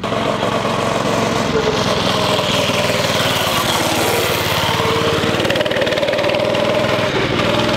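Predator 212 single-cylinder four-stroke engine of a wooden go-kart running under throttle as the kart drives, its pitch rising and falling a little. The engine still has its speed governor.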